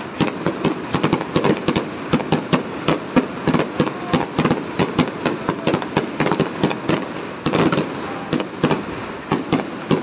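Aerial fireworks display: shells bursting in rapid, irregular bangs and crackles, several a second, without a pause.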